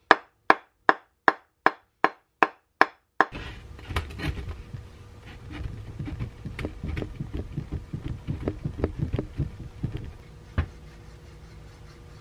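Wooden mallet knocking on the metal end bell of an old General Electric induction motor, about two and a half blows a second for the first three seconds, to free the end bell from the rotor. Then scraping and rattling with small clicks as the rotor and end bell are twisted and worked apart by hand, and one sharper click near the end.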